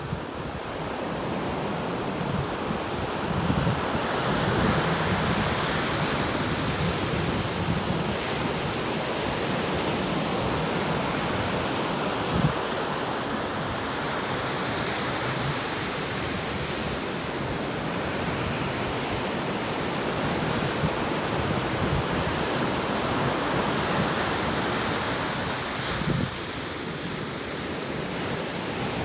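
Atlantic Ocean waves breaking and washing on the shore in a steady roar that swells and eases, with wind buffeting the microphone and a few brief low thumps.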